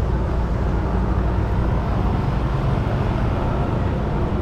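Steady low rumble of street traffic, with no single event standing out.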